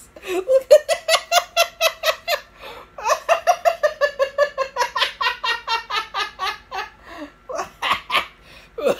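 Hearty laughter: long runs of quick, high-pitched ha-ha pulses, about five a second, with short breaks about two and a half seconds in and again near seven seconds.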